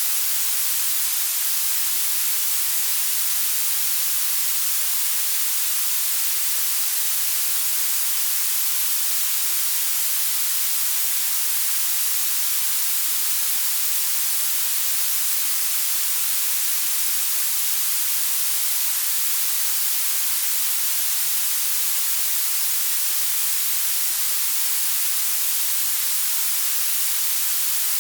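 Synthesized blue noise: a steady, unchanging hiss weighted toward the high treble, with almost nothing in the bass.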